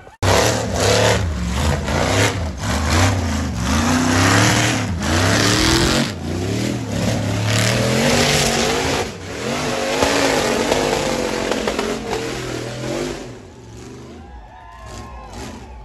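Hill-climb buggy engine revving hard, its pitch climbing and falling again and again, with sharp knocks and clatter in between. The engine sound falls away after about thirteen seconds.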